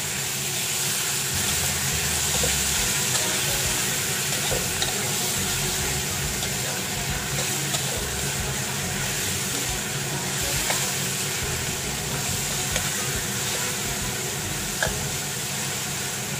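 Chicken pieces sizzling in hot oil in a stainless steel wok while a metal spatula stirs and turns them, with occasional scrapes and clicks of the spatula against the pan. This is raw chicken being stir-fried until it turns white.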